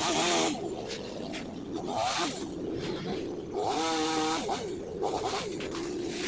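Chainsaw engine revving up and easing off several times, its pitch rising and falling between the louder spells.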